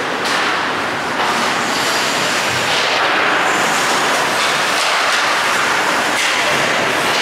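Hockey skate blades scraping and carving on rink ice, a dense hiss that grows louder about three seconds in as players skate in close.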